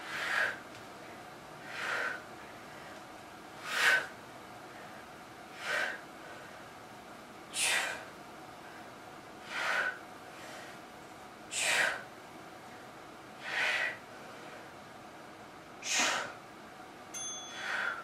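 A woman's sharp, forceful breaths, nine in all, one about every two seconds, in time with the effort of each close-grip dumbbell chest press.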